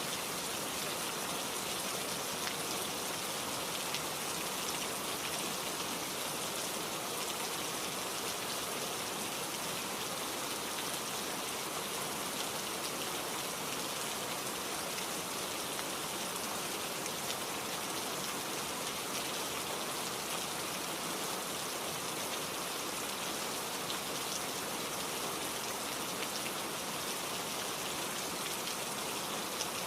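Steady rain falling, an even hiss of drops with faint individual drop patters scattered through it.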